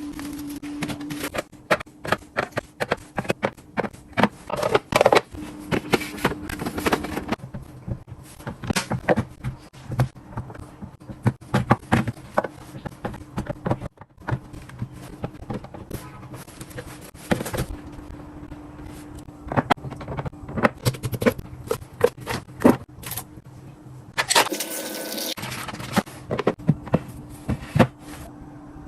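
Plastic containers and food packages being set down, slid and knocked against shelves while a fridge is organized: a busy run of clicks, taps and scrapes, over a low steady hum that comes and goes.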